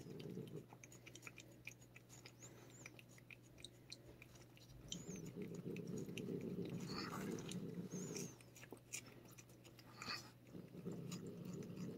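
A cat licking a paste treat from a squeeze pouch: quick, small wet smacking clicks over a low steady hum.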